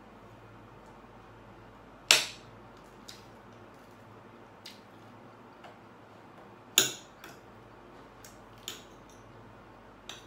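Metal spoon and fork clinking and tapping against a ceramic plate while cutting and scooping food. Two sharp clinks come about two and seven seconds in, with lighter taps between.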